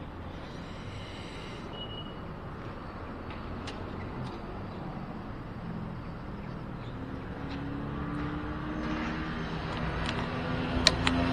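Motorcycle riding: the engine runs under a haze of wind and road noise. In the second half the engine note rises in pitch and grows louder, and a couple of sharp clicks come near the end.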